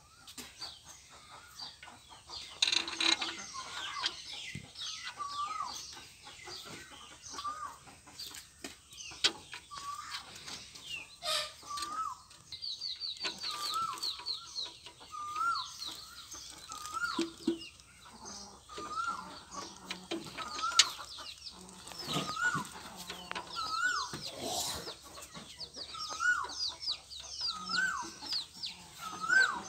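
Birds calling: a short rising call repeated about once a second, with higher chirping over it, and occasional sharp metal clinks as gears are handled in an open tractor transmission housing.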